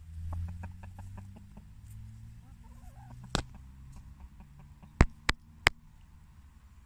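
Hens clucking, with a run of small ticks early on; then a hen pecks at the camera, a single sharp tap and, about five seconds in, three loud taps in quick succession.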